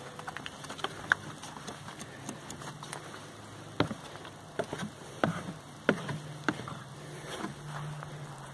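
Footsteps and knocks on a wooden deck and its stairs: a run of irregular light taps, then a few heavier thumps about half a second to a second apart, over a low steady hum.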